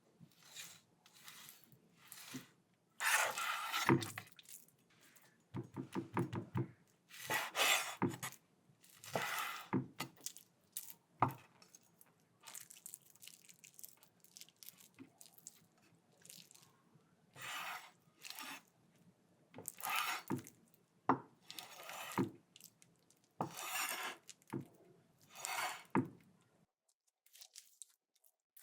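A knife cutting through raw meat in repeated sawing, slicing strokes with a wet tearing scrape, coming in irregular runs with short pauses between. It stops shortly before the end.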